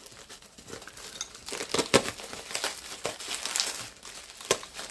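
Packaging wrapping crinkling and crackling as it is handled and unwrapped, with irregular sharp crackles, the loudest about two seconds in.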